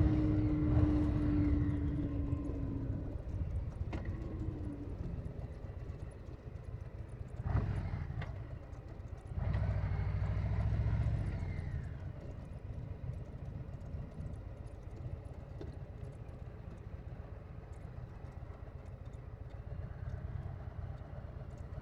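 Harley-Davidson Low Rider S V-twin engine running at low revs with an uneven, loping beat, swelling louder briefly about a third of the way in and again just before halfway, then settling back to a steady low rumble.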